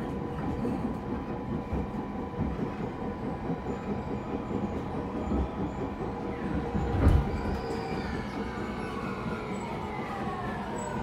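Interior running sound of a JR East E231 series commuter train pulling away and gathering speed, with wheels rumbling on the rails. Its Hitachi IGBT-VVVF inverter drive whines with a steady tone and, later on, several pitches that slide downward. There is one loud knock about seven seconds in.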